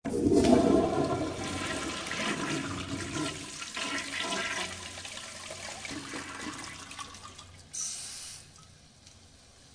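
Toilet flushing: a loud rush of water that starts suddenly and slowly dies away, with a brief hiss near the end.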